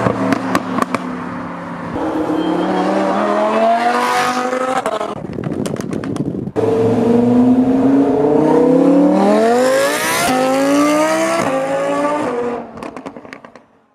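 Performance car exhaust as the engine revs up hard twice, pitch climbing each time, the second pull with a gear change about ten seconds in. Bursts of sharp exhaust crackles and pops come when the throttle is lifted, the last ones fading out near the end.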